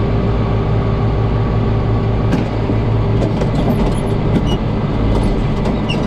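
Tractor engine running steadily, heard from inside the cab as a constant low drone, with a few faint clicks or rattles over it.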